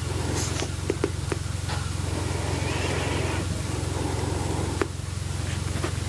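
A steady low hum throughout, with light scratching of a pen writing in a paper journal and a few small taps and clicks.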